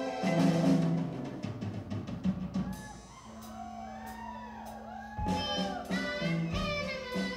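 Young amateur rock band playing live: drum kit, electric guitar and bass guitar. About three seconds in the band drops out to a held low note with swooping sounds that rise and fall, and the full band crashes back in about two seconds later.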